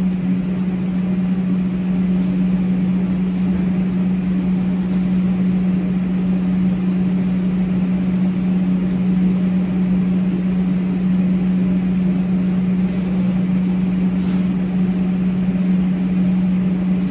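A steady, low mechanical hum runs without a break, with an even hiss over it from spices frying in oil in a large stainless steel pot on a gas burner.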